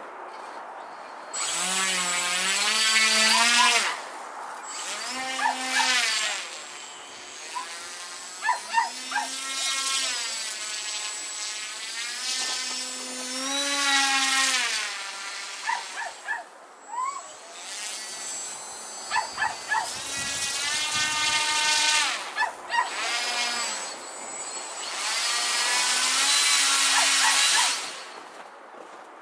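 Small electric motor of a K'nex RC ski vehicle whining in repeated bursts of one to three seconds, its pitch rising and falling as it speeds up and slows down.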